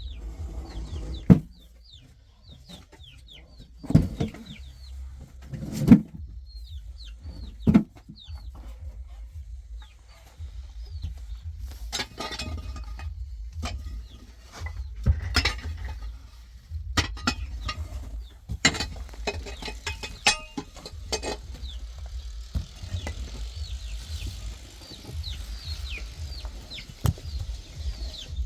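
Chickens clucking, with many short, high, falling chirps throughout. Several sharp knocks and thuds stand out, the loudest about one, four and six seconds in.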